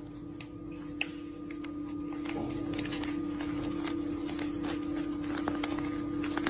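A steady low hum with faint scattered clicks, and a sharper click about a second in.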